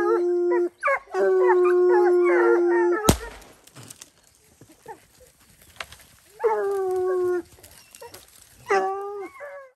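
Hounds baying at a treed mountain lion in long, drawn-out howls, then a single gunshot about three seconds in. The baying stops briefly after the shot and comes back as two shorter howls near the end.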